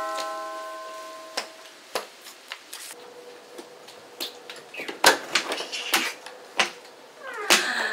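A two-note doorbell chime ringing out and fading over the first second and a half, then a series of sharp clicks and knocks as the front door is unlatched and opened.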